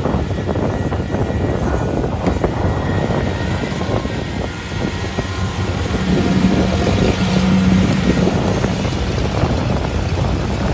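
Kubota DC70 Plus combine harvester's diesel engine running steadily under load as the machine works through mud, with a steady low hum that grows louder from about six seconds in.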